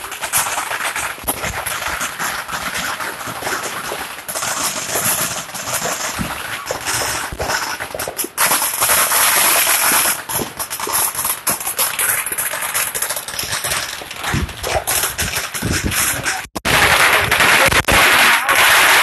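Fireworks and firecrackers going off in rapid, dense runs of crackling and popping, with louder stretches about eight seconds in and again near the end.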